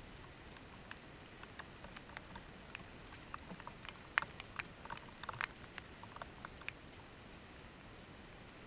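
Raindrops tapping irregularly on a window pane over a faint, steady hiss of rain. The drips come thicker through the middle, with the sharpest tap a little after four seconds in.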